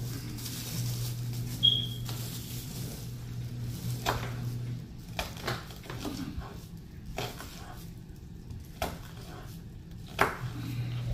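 Kitchen knife cutting a green bell pepper on a wooden cutting board: a short bright clink about two seconds in, then several separate knocks of the blade on the wood, roughly a second apart. A steady low hum runs underneath, drops out midway and comes back near the end.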